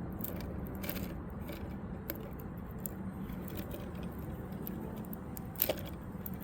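Hand handling of fireworks being fitted together: scattered small clicks and scrapes over a steady low rumble, with one sharper knock near the end.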